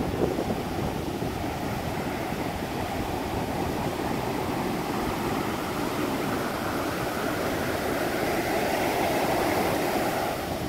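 Heavy surf from a rough sea at high tide: waves breaking and white water rushing in, a steady roar that swells a little near the end.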